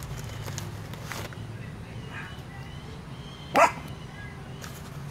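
A dog barks once, short and loud, about three and a half seconds in.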